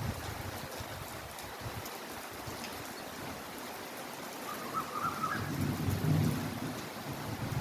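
Heavy rain falling steadily. A low rumble swells up and dies away about two-thirds of the way through.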